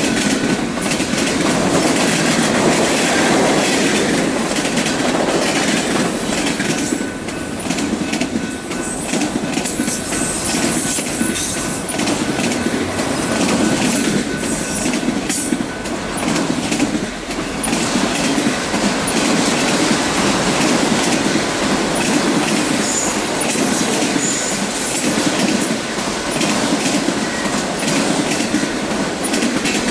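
Freight cars of a Union Pacific mixed freight rolling past on the rails: a steady wheel-on-rail rumble with clickety-clack of wheels over rail joints. A faint thin wheel squeal comes in partway through.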